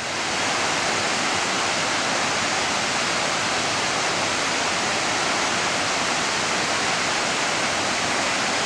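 Creek water rushing down a cascading waterfall: a steady, loud rush that swells up within the first half second and then holds even.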